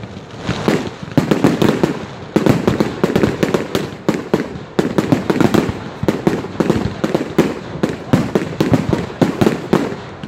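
Aerial fireworks display in full flow: a dense, continuous barrage of bangs and crackles from shells bursting overhead, with louder clusters of reports about every second.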